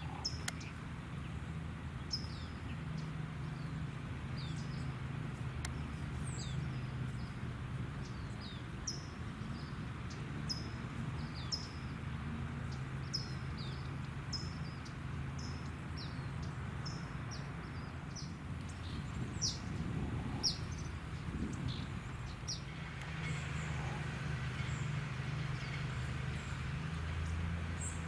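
Small songbirds chirping, a string of short high chirps over a steady low rumble. A hiss swells in near the end.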